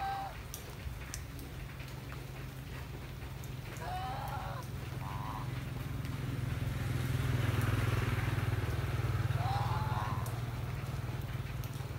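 White domestic geese honking: three short calls, each rising in pitch, about four seconds apart. Under them a low engine drone from a passing vehicle swells to its loudest about two-thirds of the way through, then fades.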